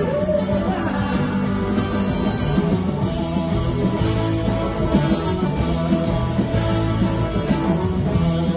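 A live rock band playing at full volume: electric guitars, bass guitar and two drum kits together, with steady sustained notes over a driving beat, heard from the audience in a concert hall.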